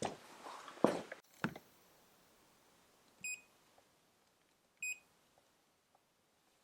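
A few sharp knocks and clicks in the first second and a half, then two short high electronic beeps about a second and a half apart.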